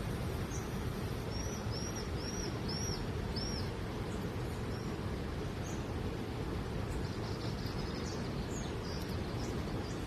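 A bird calls a quick run of five short chirps, about two a second, over steady low background noise; a few fainter scattered chirps follow later.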